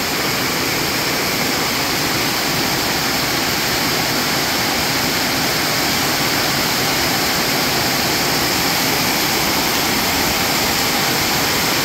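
Heavy tropical downpour: a loud, steady rush of rain, drumming on the sheet-metal roofing overhead and pouring onto the yard.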